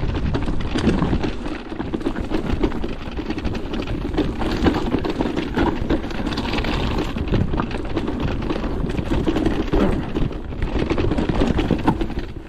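Merida eONE-SIXTY electric mountain bike riding over rough trail: a continuous clatter of tyre and frame rattle over low rumbling wind noise on the microphone.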